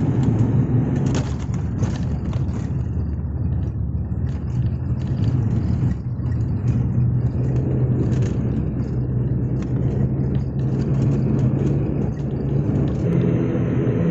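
Cabin noise of an airliner rolling down the runway after touchdown: a steady low engine drone over the rumble of the wheels, with a few short rattles and knocks. The sound changes about a second before the end.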